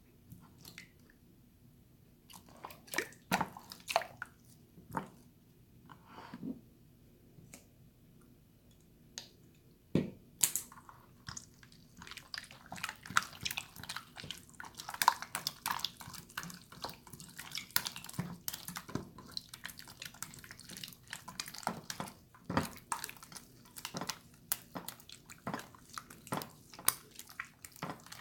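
Water slime being squished and poked by hand, giving wet clicks, pops and drips. There are scattered clicks for about the first ten seconds, then a quick, steady run of sticky crackling.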